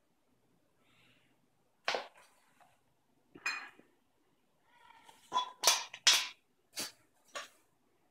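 Sharp clinks and knocks of a metal measuring cup, a glass mixing bowl and a glass jar being handled, some with a short ringing tone, about seven in all. A brief scrape comes just before the loudest cluster, a little past halfway.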